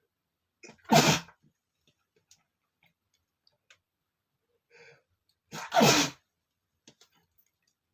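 A man sneezing twice, about five seconds apart, each a loud short burst with a brief catch of breath just before it.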